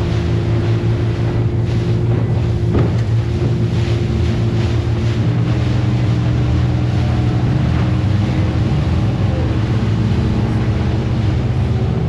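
Motorboat engine running steadily under way, a continuous drone with the rush of wind and water over it.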